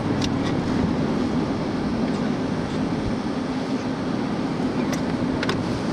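Steady road and engine noise heard from inside a moving car, with a few light ticks near the end.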